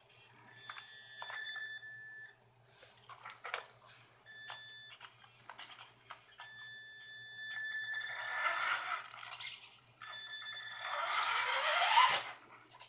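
Electric motor and speed control of a Traxxas Slash RC truck whining in on-and-off stretches as throttle is applied from the phone. Louder motor and gear noise follows as the truck drives off across the carpet, with a rising whine as it speeds up near the end.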